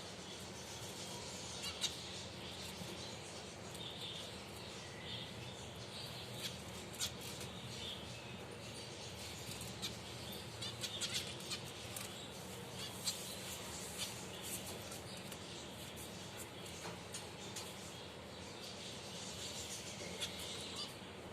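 Finches chirping: many short, high-pitched chirps scattered irregularly, with a few louder sharp calls standing out, over a steady low background hum.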